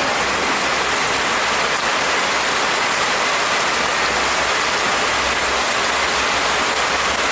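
Heavy rain pouring steadily onto a pond, a dense, even hiss.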